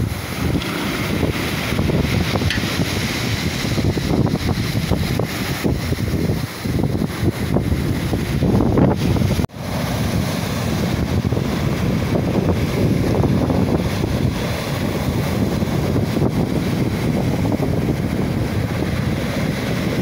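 Rough sea surf breaking and washing up a pebble beach, with wind buffeting the microphone. The sound drops out for an instant about halfway through.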